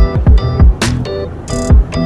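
Background music: an electronic track with a steady beat of bass kicks and bright hits under keyboard chords.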